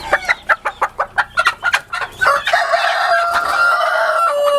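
Chickens clucking in a quick run of short calls, then a rooster crowing, one long drawn-out crow starting about halfway through.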